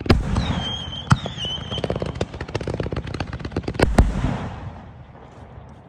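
7-inch strobe fireworks going off: dense, rapid strobe crackling with loud bangs at the start, about a second in and twice in quick succession near four seconds, then the crackle dies away. A short high wavering whistle sounds early on. Described as loud.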